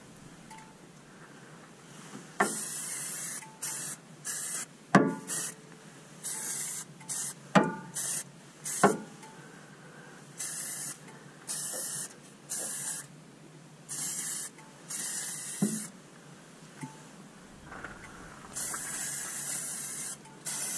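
Aerosol spray can hissing in some fifteen short bursts, each lasting a fraction of a second to about a second, with a few sharp knocks in between that are louder than the spray.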